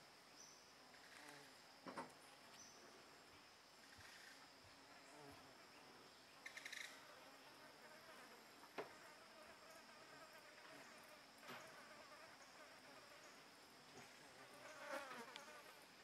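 Faint outdoor ambience with an insect's steady, high-pitched drone running throughout, and a few soft clicks and rustles scattered through it.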